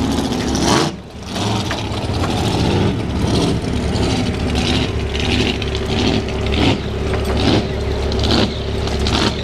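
Drag boat's 555 cubic-inch twin-turbo, fuel-injected engine running, with its pitch swelling and falling back in regular pulses about once a second. There is a short break about a second in.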